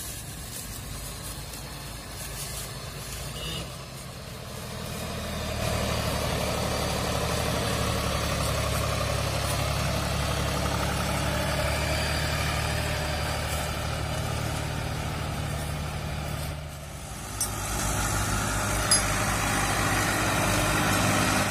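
John Deere 5050E tractor's three-cylinder diesel engine running steadily while pulling a paddy thresher, growing louder about five seconds in. Near the end a second tractor's diesel engine runs, with two brief sharp clicks.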